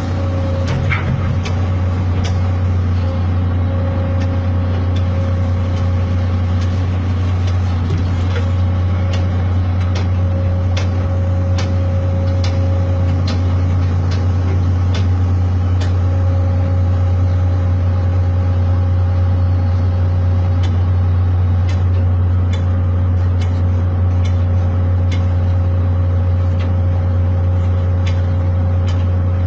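Excavator's diesel engine running steadily under load, with frequent short metallic clanks and knocks throughout.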